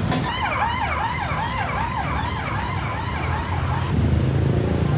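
A passing siren's fast yelp, quick falling-pitch sweeps repeating about three times a second, that stops about four seconds in, over a steady low rumble.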